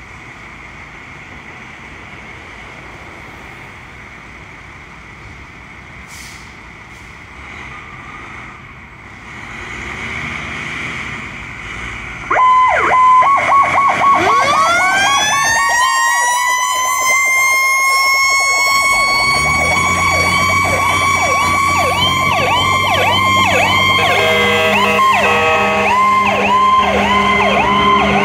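A fire truck and an ambulance leaving on an emergency run. Their engines run low and steady at first and get louder as they pull out. About twelve seconds in, sirens start suddenly and loudly: a pulsing high tone, then a siren winding up to a steady wail, joined by fast yelping sirens and low horn tones.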